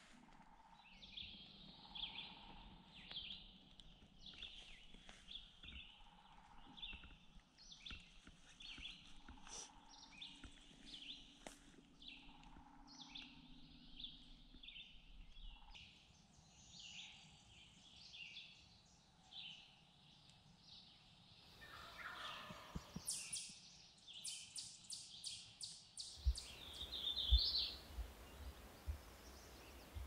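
Spring woodland dawn chorus: many songbirds singing short, high phrases, with a louder rattling call about three-quarters of the way through and a few low thumps near the end.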